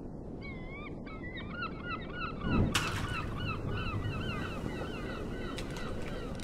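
Seagulls calling over and over in short, bending cries over a steady low rush of noise, with a dull thud about two and a half seconds in.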